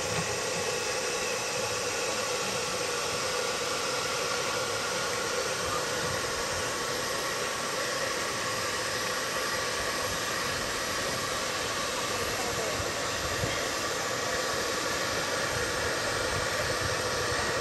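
Small Saito model steam engines driving radio-controlled model boats, running steadily.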